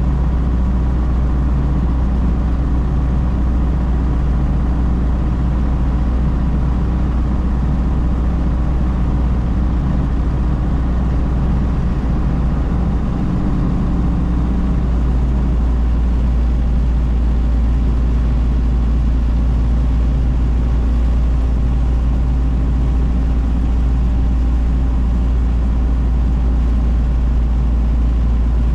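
1932 Ford Model B's four-cylinder engine running at a steady cruise, heard from inside the cab with road noise, a strong, even low drone that holds without change.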